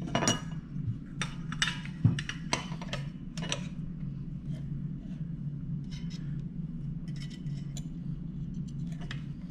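Sharp metallic clicks and knocks from handling a car gas pedal assembly's retaining spring and pivot pin, several in the first few seconds and then sparser and fainter, over a steady low hum.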